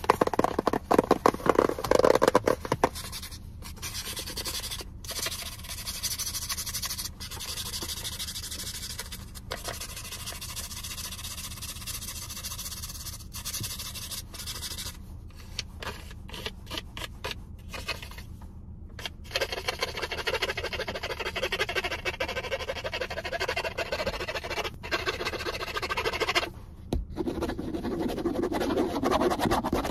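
Fingernails tapping quickly on a small white box for the first few seconds, then scratching and rubbing along its surface, with a few brief pauses. A low steady hum runs underneath.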